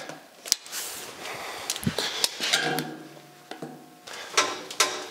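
Metal knocks and clanks from a manual sheet-metal brake and the 18-gauge steel sheet being set in it, with short ringing tones and two sharp ringing clanks near the end.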